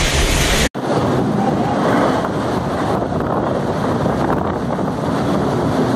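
Storm wind and heavy rain, with gusts buffeting the microphone. The sound cuts out for an instant under a second in, then the rain and wind go on, duller and with less hiss.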